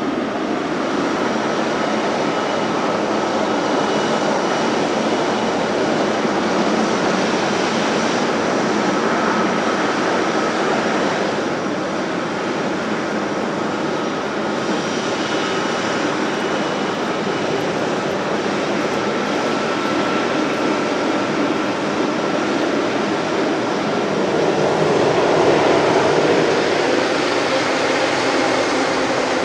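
A Boeing 777-300ER's GE90 jet engines running at taxi power as the airliner rolls past: a steady rushing noise with a thin high whine over it, swelling a little louder near the end.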